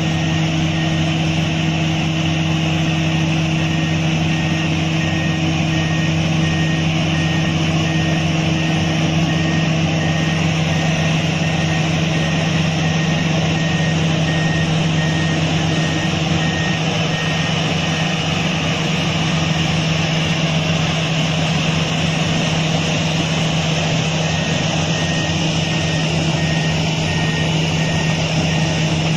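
Heavy earthmoving machine's diesel engine running steadily under a loud drone, with a back-up alarm beeping in a regular series that pauses for several seconds partway through.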